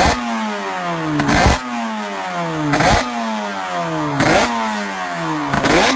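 Suter MMX500's V4 two-stroke racing engine being revved on a stand: a sharp blip of the throttle about every second and a half, the revs falling away after each one before the next blip.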